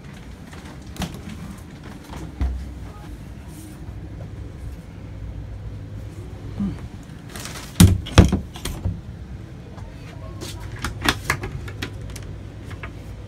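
Touring caravan's interior doors and cupboards being handled, with scattered clicks and knocks. The two loudest knocks come about eight seconds in, over a low steady hum.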